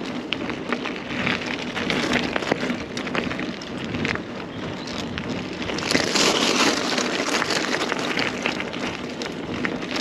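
Carrera Hellcat mountain bike rolling along a rough path: tyre noise crackling with many small clicks and rattles, louder about six seconds in.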